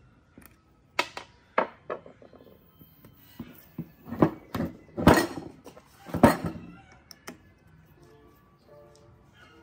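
Irregular knocks and thunks, a few light ones early and three heavier ones in the middle, with soft background music near the end.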